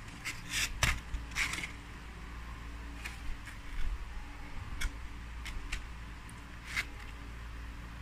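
Hands pulling apart crispy deep-fried birds in a foam takeaway box: scattered short crackles, snaps and scrapes, over a faint steady low hum.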